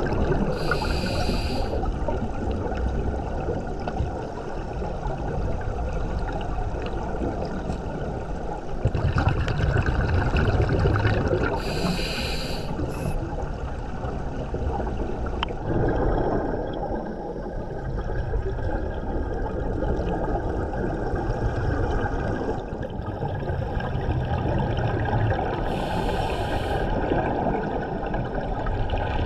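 Underwater bubbling and gurgling of divers' breathing gas, heard through an underwater camera. Three short high regulator hisses come about a second in, near the middle and near the end.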